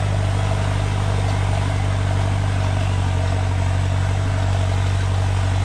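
Ford 6640 turbo-diesel tractor engine running steadily under load while ploughing, a constant low drone with no change in speed.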